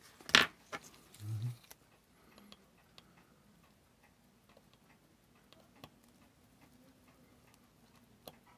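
Small, faint clicks and taps of steel tweezers and fingers working on a disassembled Seiko 7006 watch movement in its holder, with one sharper click about half a second in.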